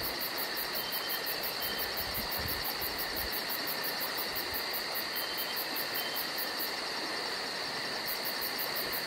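A chorus of insects chirping: a fast, even, high-pitched pulsing over a steady shrill buzz.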